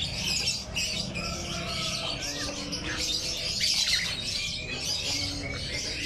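Many caged birds chirping at once: a dense, steady chorus of overlapping high-pitched calls.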